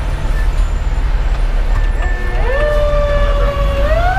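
Inside the cab of a 2010 Pierce Velocity fire engine, its Detroit Series 60 diesel runs with a steady low rumble. A little over two seconds in, the truck's siren starts up; its pitch rises, holds, then climbs higher again near the end.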